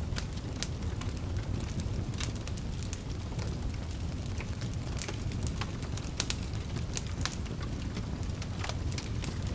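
Wood fire crackling steadily in a fireplace: a low rumble of flames with frequent irregular sharp pops and snaps.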